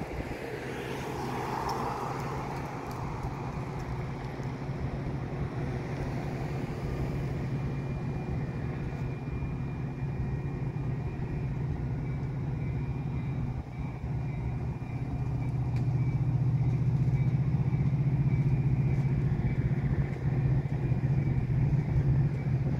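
Metra commuter train's diesel locomotive running with a steady low drone, growing louder about two-thirds of the way in.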